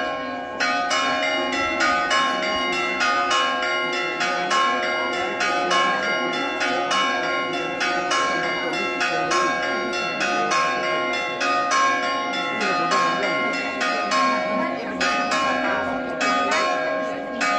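Church bells ringing in a fast, continuous peal: several strikes a second over their steady, lingering ring.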